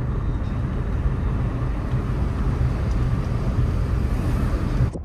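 Steady rumble of a moving car heard from inside the cabin: road, engine and wind noise. It cuts off abruptly near the end.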